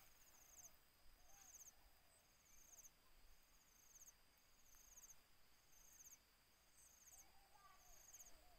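Faint insect chirping over near silence: a short, high-pitched pulsed chirp repeating about once a second.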